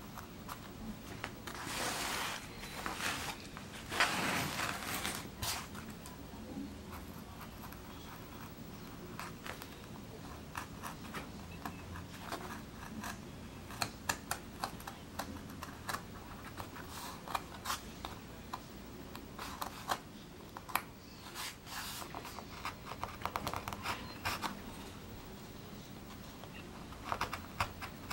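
Small hand gouge cutting into a plywood woodcut block: a run of short scrapes and clicks as the blade bites and lifts chips, with two longer scrapes a few seconds in.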